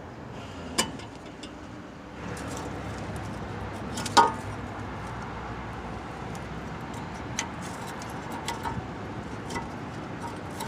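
Brake parts being handled at the wheel: metal clinks and taps, a sharp clink about a second in and a louder one about four seconds in, then a few lighter ticks, over a steady low background hum.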